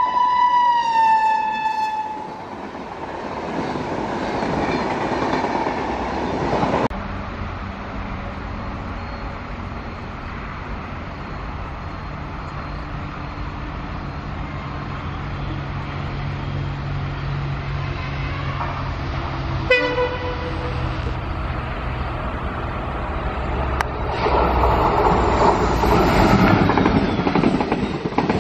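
WDP-4D diesel locomotive's EMD two-stroke V16 engine drones steadily as it approaches hauling a passenger express, sounds a short horn blast about two-thirds of the way through, then passes with the coaches clattering over the rail joints, louder near the end. At the very start a train horn falls in pitch as another train passes.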